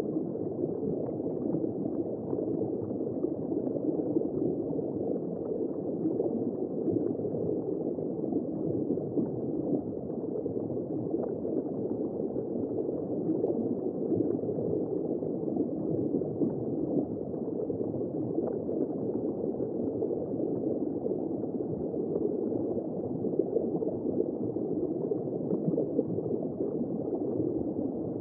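Steady, muffled rush of bubbling water heard underwater, dull and low with no high end.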